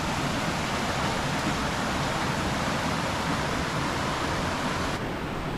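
Waterfall cascade rushing steadily over rock, a loud even roar of water; about five seconds in the sound suddenly turns duller as its higher part drops away.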